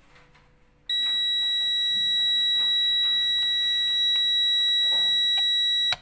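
Digital multimeter's continuity beeper giving one steady high beep for about five seconds while a jet ski switch-box button is held pressed: the switch is closing its circuit. It starts about a second in and cuts off suddenly, after a few soft clicks from handling the switch box and leads.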